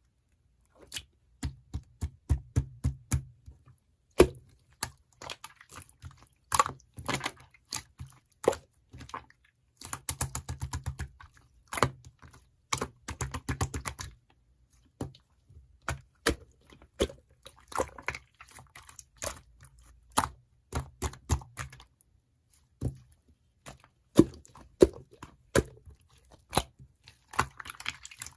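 An irregular series of sharp clicks and taps, with quick rapid runs of them in places, starting about a second in.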